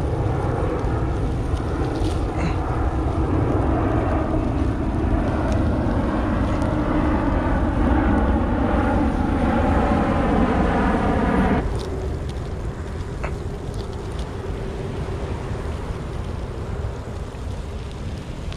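Wind buffeting the microphone, with a steady droning hum over it for about the first twelve seconds that stops abruptly.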